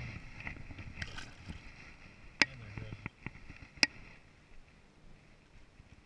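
Handling noise from a spinning rod and reel in a bass boat as a small bass goes back over the side: two sharp clicks about a second and a half apart, the loudest sounds, among lighter ticks over a faint steady hiss.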